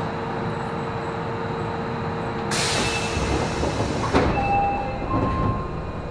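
Inside an Osaka Municipal Subway Series 10 car standing at a station: a steady hum, then a hiss of air from about two and a half seconds in, ending in a sharp thud about four seconds in as the doors shut.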